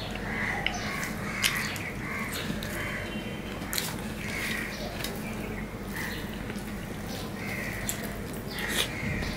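Close-up eating sounds: fingers mixing rice and fish curry on a steel plate and chewing with frequent mouth clicks. A bird calls repeatedly in the background, short calls about once a second.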